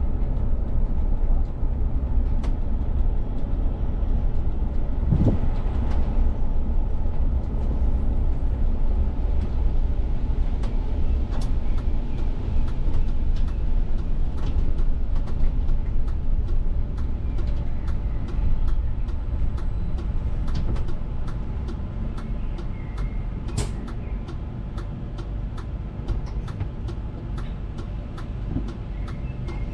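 Cabin sound of a VDL city bus under way: the steady low rumble of the drivetrain and road, easing and growing quieter over the last third as the bus slows to a stop. From about ten seconds in, the turn indicator ticks steadily, about two clicks a second.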